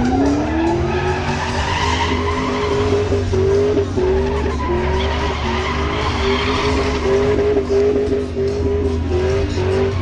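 Pontiac Firebird's engine revving up in the first second and then held at high revs, stuttering in places, while its rear tyres spin and squeal in a burnout.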